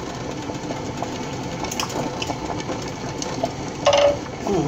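Wooden spoon stirring food in a skillet on an electric stove: a steady, busy clatter of small scrapes and taps over the simmering pan. A brief louder sound comes near the end.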